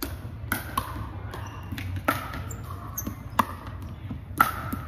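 Pickleball paddles striking the hard plastic ball, a string of sharp pocks at irregular intervals, ringing in a large gym with hardwood floors; the loudest come near the end.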